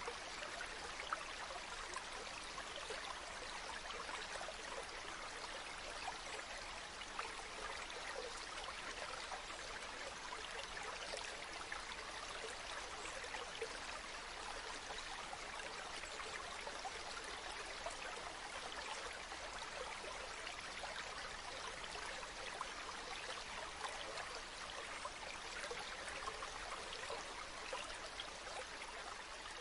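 Spring water running and trickling steadily, a continuous even rush flecked with tiny splashes.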